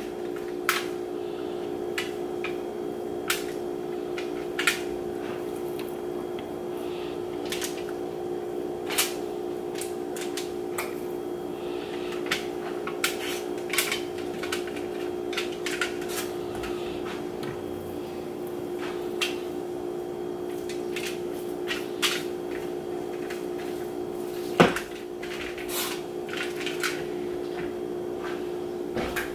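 Steady hum of a kitchen appliance, with scattered light clicks and knocks of off-camera kitchen work: utensils, bowls and cupboards being handled. One sharper knock stands out about twenty-five seconds in.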